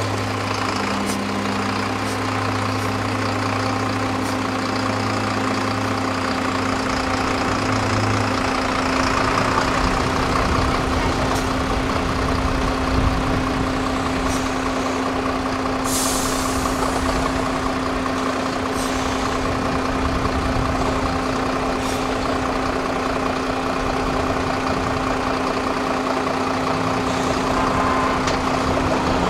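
Diesel engine of a 6x6 MAN trial truck running steadily as the truck crawls slowly over rough ground, a constant low drone. About halfway through comes one short hiss.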